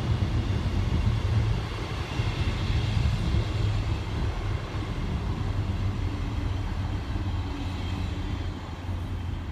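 Deep, steady drone of the English Electric diesel engines of a Class 40 and a Class 37 locomotive working in multiple as they pull away down the line, easing off slightly near the end.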